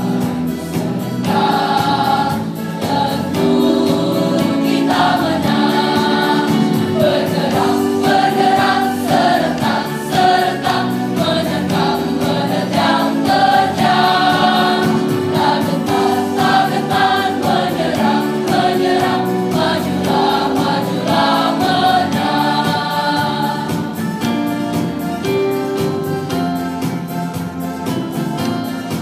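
Large mixed school choir singing with electronic keyboard accompaniment. Near the end the voices drop out and the keyboard plays on alone.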